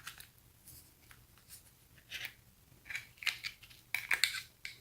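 Light clicks and scrapes of small iPhone parts being handled during reassembly, scattered and coming more often in the second half.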